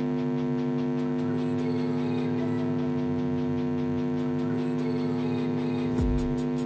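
A steady, even hum made of several held tones, unchanging throughout, with a low bump near the end.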